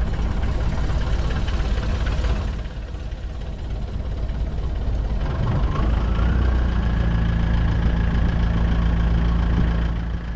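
A tour boat's motor running steadily. It eases off for a couple of seconds, then picks up again about halfway through with a rising whine that holds steady.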